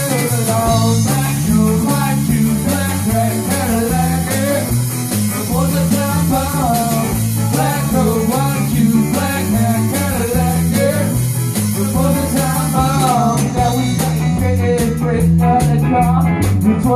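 Live rock band playing: distorted electric guitars, bass guitar and a drum kit, with a man singing into a microphone. The cymbal and hi-hat strokes get busier about three-quarters of the way through.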